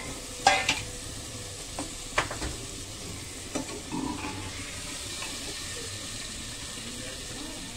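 A ladle stirs potato pieces into masala frying in oil in a pressure cooker, with the spoon knocking and scraping against the pot several times in the first four seconds. A steady sizzle runs underneath.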